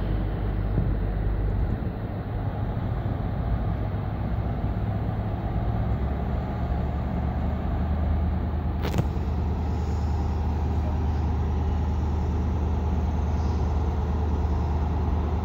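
High Speed Train's Class 43 diesel power car running, a steady low rumble that grows a little louder about six seconds in. A single sharp click about nine seconds in.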